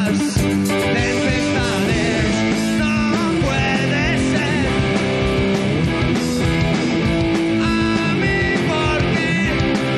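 Rock band playing live: electric guitar, bass and drums, with a male singer singing over them.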